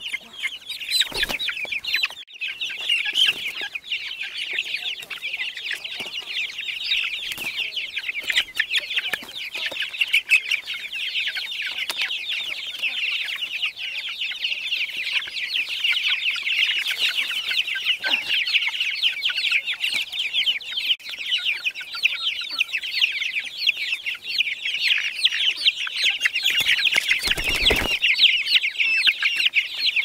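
A flock of young chicks cheeping all together, a dense high-pitched chorus of peeps that never lets up. Near the end there is a brief low rumble.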